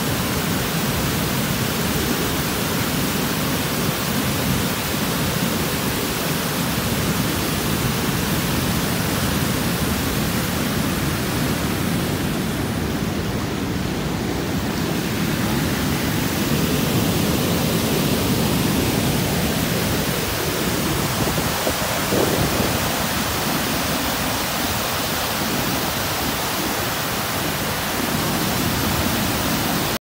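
A broad waterfall pours over a rock ledge, and its water rushes and churns through the rocks below in a steady, loud rush.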